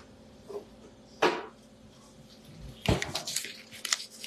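Kitchen handling noises: a sharp knock about a second in, then a heavier thump near three seconds followed by a quick run of clicks and clatter.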